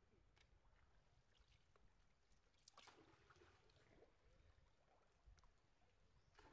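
Faint splashing and lapping of water as young monkeys swim and dive in a shallow pool, with a slightly louder splash about three seconds in.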